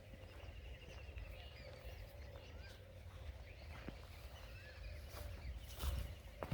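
Small birds chirping and trilling repeatedly over a low rumble and a faint steady hum, with a couple of sharp knocks near the end.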